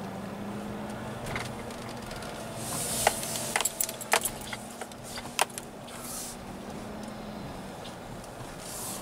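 Pickup truck driving slowly, heard from inside the cab: a steady hum, with a run of light clicks and rattles for a couple of seconds midway.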